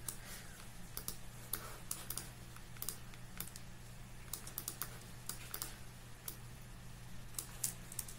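Computer keyboard typing and clicking: irregular sharp taps, clustered at times, over a low steady hum.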